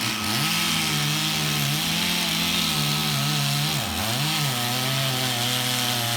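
Chainsaw running hard through a dead cottonwood, its pitch wavering under load and dropping then climbing again twice as the throttle eases and opens. A steady hum sits underneath.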